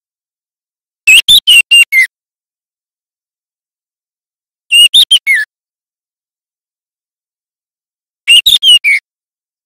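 Juvenile male white-rumped shama practising its song: three short phrases of quick whistled notes, each ending on a falling note, with silence between them.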